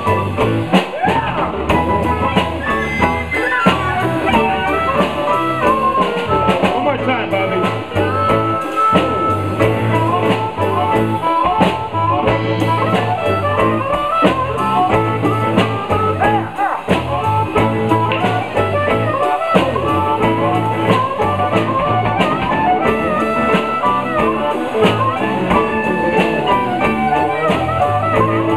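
A live blues band playing an instrumental passage: drum kit and bass keep a steady groove while a lead instrument plays bending, wavering melodic lines over the band.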